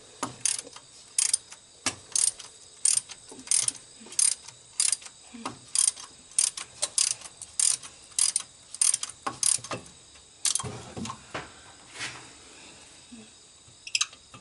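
Socket ratchet clicking in short bursts, about one and a half a second, as a spark plug is wrenched out of a 1953 Chevrolet engine. The clicking thins to a few scattered clicks near the end.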